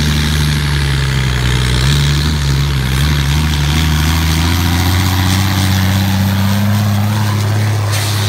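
Diesel semi truck engine running hard under full load as it drags a pulling sled down the track, a loud continuous drone whose pitch rises about five seconds in.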